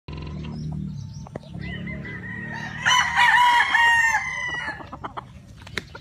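Gamecock rooster crowing: one long, loud crow from about three seconds in that lasts nearly two seconds, after a fainter crow that begins just before it.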